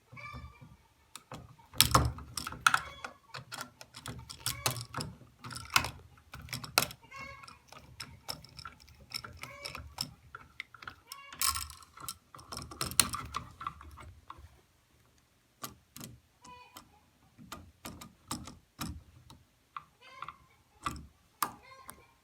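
Irregular clicks, knocks and short scrapes of hand tools and small metal parts being handled, with a few louder knocks about 2, 6 and 12 seconds in.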